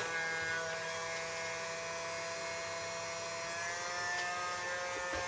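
Blower fan of a cheap hot air rework gun running: a steady motor whine with several pitches over the hiss of air from the nozzle, the whine edging slightly up in pitch a little past halfway.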